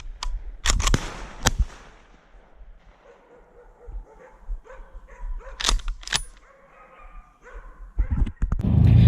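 A dog barking several loud times in the first second and a half, then quieter sounds, with two more sharp barks a little past halfway.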